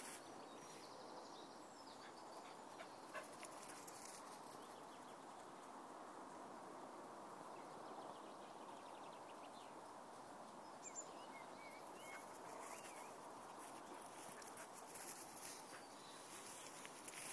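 Quiet meadow ambience with a few faint chirps about two thirds of the way through. Near the end, footsteps and rustling through long grass.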